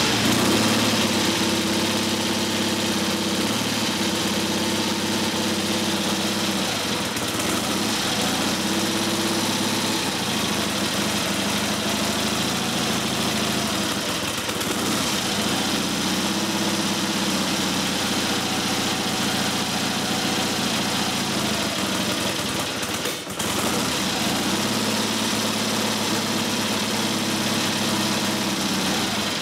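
Triumph Tiger T100's parallel-twin engine running at a steady fast idle just after a kick-start. A slight blowing sound comes through, which the owner takes for a blow at the cylinder head gasket. The running dips briefly once, late on.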